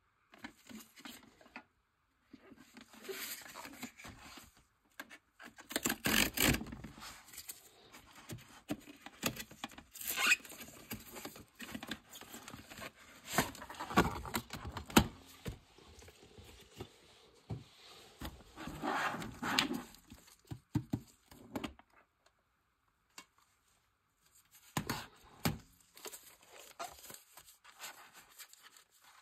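Cardboard packaging of a trading-card tin being opened by hand: irregular bursts of tearing, scraping and rustling card, with crinkling as the foil card packs and metal tin are handled.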